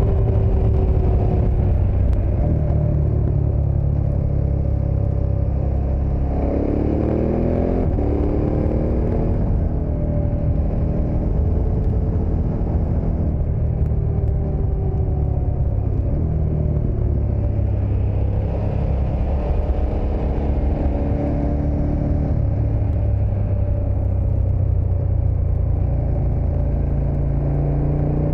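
KTM 1290 Super Adventure's V-twin engine running under way, with a steady low rumble. The engine note rises as it accelerates about six seconds in.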